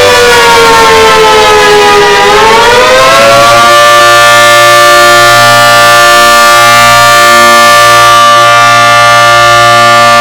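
Civil defense siren sounding loud: its pitch falls for about two seconds, climbs back up, then holds steady.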